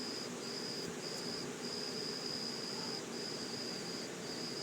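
An insect trilling: a steady high-pitched trill broken by short gaps every second or so.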